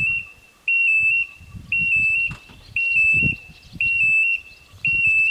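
Level-crossing warning bell: an electronic tone sounding in regular half-second beeps about once a second, five times, signalling an approaching train.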